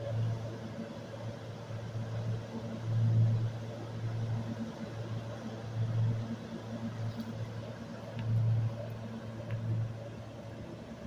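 Low hum and rumble of a SEPTA electric commuter train pulling slowly away from the station platform, swelling and easing every second or two.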